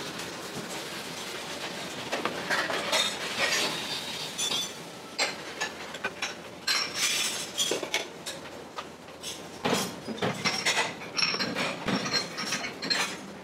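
A metal spoon and a steel pot clinking against steel bowls again and again while a bowl of noodles is assembled, over a steady background hiss.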